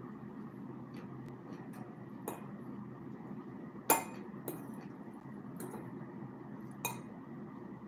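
Metal fork clinking against glass and ceramic dishes while eating, a handful of separate clinks with the sharpest about four seconds in, over a steady low hum.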